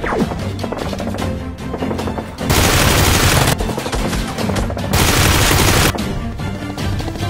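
Two bursts of automatic gunfire, each about a second long, about two and a half seconds apart, over background music.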